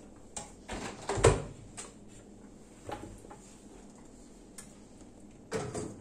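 A built-in oven door being pulled open, with a heavy clunk about a second in and a few lighter clicks after it. Near the end come clattering knocks as an aluminium tube cake tin is set down on the oven's wire rack.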